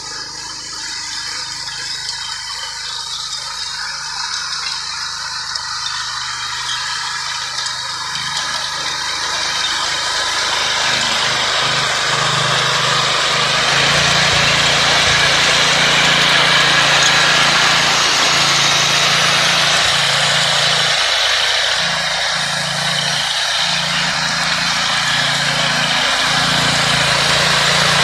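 Walk-behind rotary tiller's small air-cooled engine running steadily under load while its tines churn the soil, growing louder over the first half.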